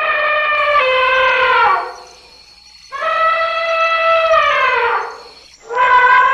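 African elephant trumpeting: three long calls in a row, each about two seconds long and dropping in pitch as it ends.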